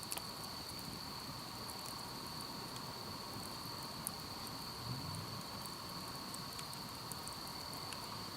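Night chorus of crickets: a steady, unbroken high trill, with a few faint clicks.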